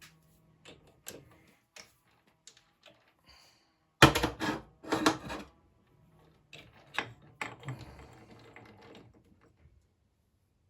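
Metal parts and tools being handled and fitted: a string of small clicks and knocks, with a louder cluster of knocks about four seconds in and lighter ticking and rattling after it.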